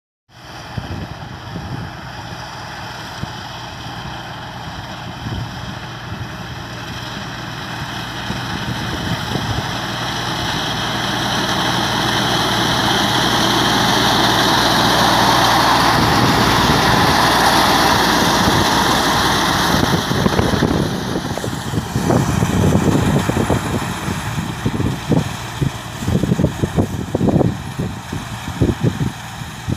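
Reaper machine running as it cuts standing sorghum (jowar), growing louder as it passes close about halfway through and fading as it moves away. Irregular low thumps come through the last third.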